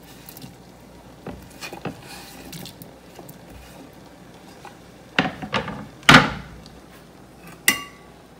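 Cubed potatoes slid off a wooden cutting board into a steel pot of water: a few sharp knocks and plops, the loudest about six seconds in. Near the end, a knock leaves the metal pot ringing briefly.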